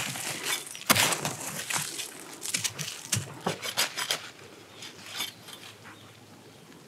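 A small hand tool digging and scraping into dry, sandy soil, then a potato plant being pulled up with the soil crunching and crumbling off its roots. A quick run of crunchy scrapes, the sharpest about a second in, thins out to a light rustle after about five seconds.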